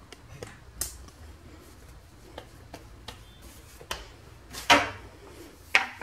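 Hands pressing and patting a ball of dough on a floured granite countertop, with scattered soft taps. Near the end come two louder short scraping knocks as a metal rolling pin is brought down onto the dough.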